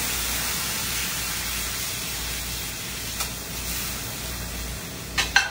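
Water hitting a hot oiled pan on a gas range, hissing and sizzling steadily with steam as the pan is deglazed. Near the end come two sharp clinks, the second the loudest sound.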